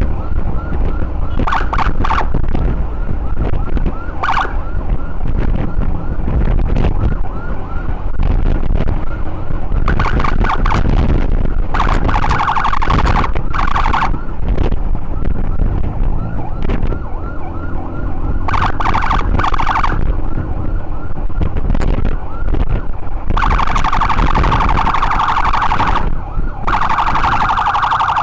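Ambulance siren sounding in a fast wavering pattern, switching several times to louder, steadier blasts, over heavy wind noise on the microphone of a moving motorcycle.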